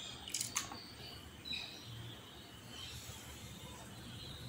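A steel ladle clinks twice against the rim of an aluminium pressure cooker as the stirring of the rice ends, then a faint background with a few short bird chirps.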